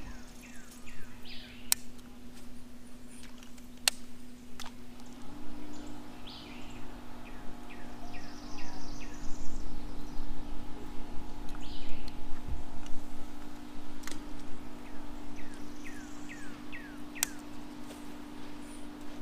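Birds calling in repeated runs of short, falling chirps over a steady low hum, with a few sharp clicks.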